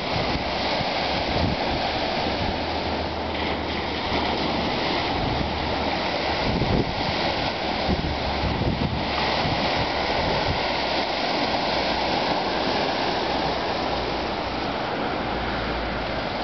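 Small Lake Michigan waves washing and lapping steadily against a rocky shoreline, with wind rumbling on the microphone.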